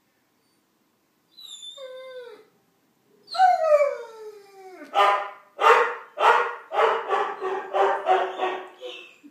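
Dogs howling: a faint whine that falls in pitch, then a long loud howl sliding downward, then a run of short barking howls at about two a second.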